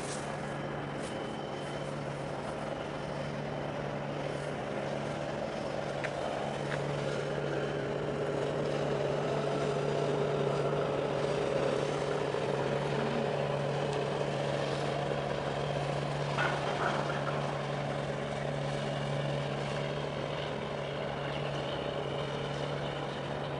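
Heavy diesel engines running with a steady low hum that grows a little louder in the middle.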